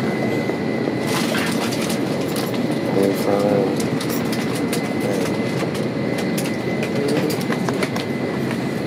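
Steady rushing air-system noise inside the cabin of an Airbus A320 parked at the gate, with a thin high whine running through it and scattered light knocks and rustles.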